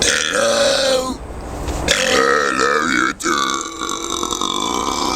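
Deliberate, drawn-out human burps. A loud one lasts about a second, and after a short pause a longer, wavering belch breaks off briefly about three seconds in, then carries on steadily to the end.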